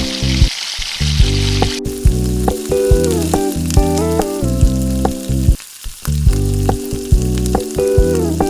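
Food sizzling in hot oil in a pan, under background music with a melody and a steady beat.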